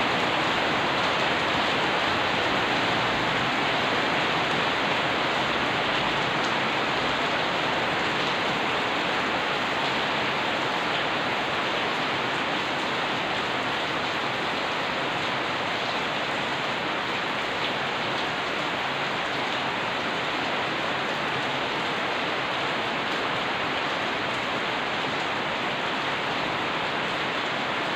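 Steady rain falling on a paved yard and street.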